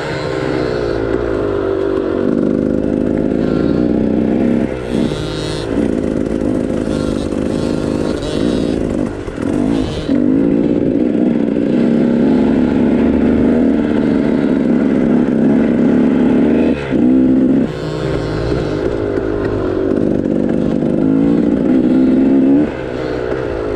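KTM 300 XC two-stroke single-cylinder dirt bike engine running on a trail, its pitch rising and falling with the throttle. There are brief dips every few seconds where the throttle is rolled off.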